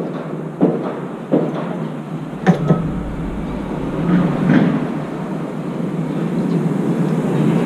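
Crow drinking from a plastic water container on a metal railing: several sharp knocks of its bill and feet against the container in the first few seconds, then a couple of softer ticks, over a steady background hum.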